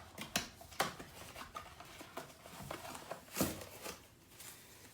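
Gift packaging rustling and crinkling as a present is unwrapped by hand: a run of short crackles and clicks, the loudest about three and a half seconds in, dying down near the end.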